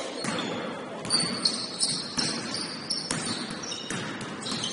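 A basketball bouncing on a gym court, with irregular sharp knocks and short high-pitched sneaker squeaks from players moving on the floor.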